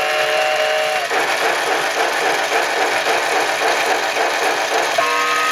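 Novelty steam-locomotive alarm clock going off: a recorded steam whistle that stops about a second in, then a steady rhythmic steam-engine chuffing, then another whistle starting near the end.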